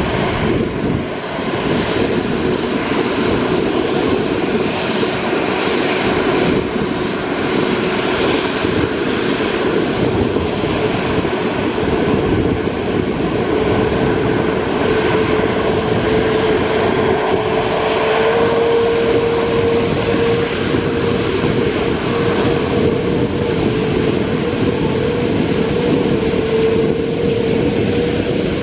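Airbus A330neo's Rolls-Royce Trent 7000 turbofan engines running as the airliner taxis and turns on the runway: a loud, steady jet rumble with a whine that rises in pitch about halfway through and then holds.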